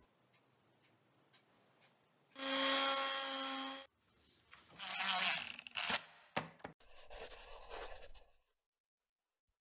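Quick cuts of woodworking workshop sounds. Faint scraping comes first, then a power tool runs for about a second and a half with a steady pitched whine. After that there are rough rubbing and scraping noises with a few sharp clicks, and the sound cuts off suddenly near the end.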